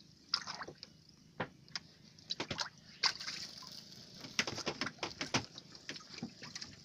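Water sloshing and dripping in a series of irregular small splashes, over a steady hiss.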